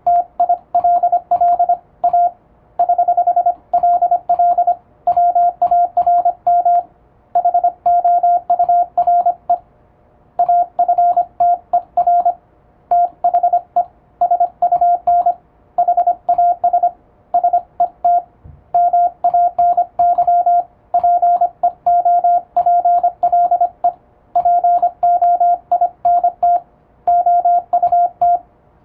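Morse code sidetone: a single steady-pitched beep keyed rapidly on and off in dots and dashes by an electronic keyer. It is English (Latin-alphabet) Morse sent at high speed, in runs with short pauses between words.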